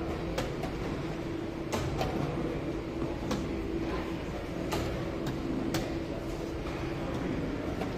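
Quick, irregular sharp taps of chess pieces being set down on a board and a chess clock being pressed during a fast blitz game, about a dozen taps, over a steady low hum of room noise.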